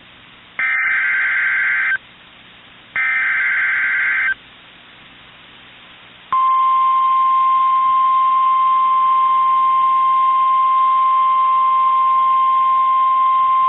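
Two buzzy EAS/SAME digital data bursts, each about a second and a half long, a second apart. About six seconds in, the steady single-pitch NOAA Weather Radio alert tone (1050 hertz) comes on and holds. Together they signal that a new warning, here a flash flood warning, is starting on the broadcast.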